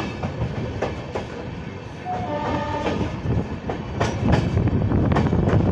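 Passenger train coaches running along the track, heard from the side of the moving train: a steady rumble with wheel clicks over the rail joints, mixed with wind. A brief pitched tone sounds about two seconds in, and the running noise grows louder after that.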